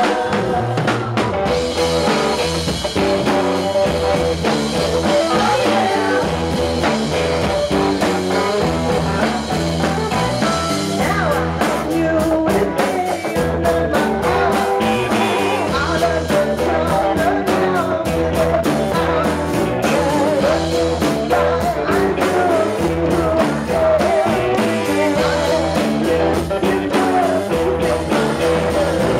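Live rock band playing: a woman singing over electric guitars, bass guitar and drum kit. The drums grow busier with steady cymbal hits about a third of the way in.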